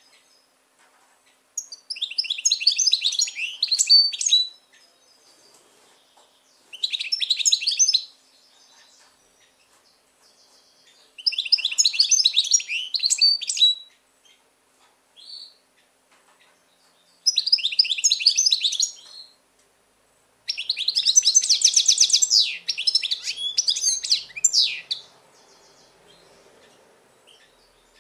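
European goldfinch singing: five phrases of fast, high twittering song with pauses of a second or more between them, the last phrase the longest.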